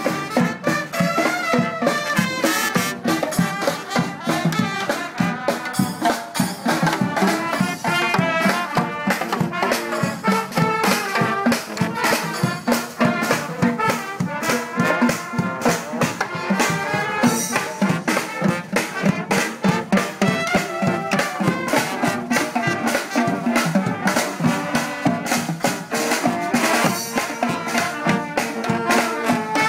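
Street brass band playing a lively tune: trumpets, saxophone and sousaphone over a steady beat of bass drum, snare, cymbals and marching drums.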